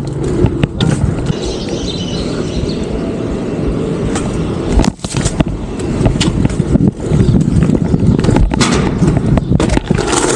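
BMX bike rolling over pavement: a steady tyre rumble, broken by sharp knocks and clatter as the bike hits and lands on obstacles, with a loud knock about five seconds in.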